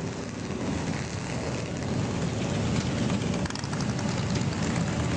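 Motorcycle engines running nearby, growing louder about two seconds in.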